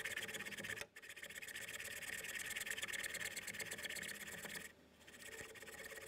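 Hacksaw cutting a shower valve stem to length, a steady rasping run of quick strokes with short breaks about a second in and just before 5 seconds.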